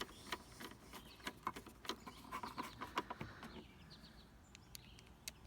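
Light, irregular clicking of a hand tool driving the tail light's T20 Torx screws back in, the clicks thinning out about three and a half seconds in.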